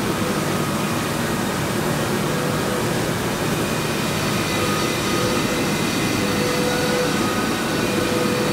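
Steady mechanical hum and hiss of an engineering workshop, with a few faint steady tones, from machinery running in the shop; the crankshaft in the balancing machine is not yet turning.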